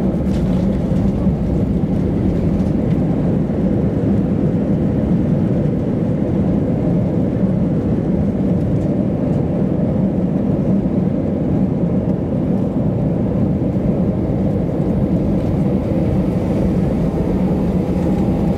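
Cabin noise of an Airbus A319 rolling out on the runway just after touchdown: a loud, steady rumble of the engines and wheels, heard from a window seat over the wing as the aircraft decelerates with its ground spoilers raised.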